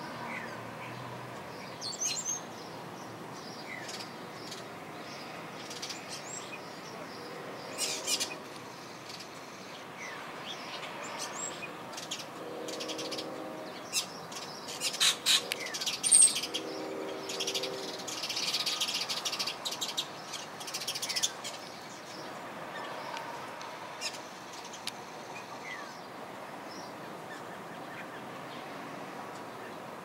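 European starlings calling: scattered short whistles and gliding notes mixed with sharp clicks and chatter, busiest in the middle.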